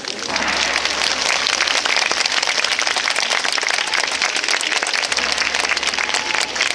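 Large crowd applauding, breaking out sharply just after the start and going on steadily.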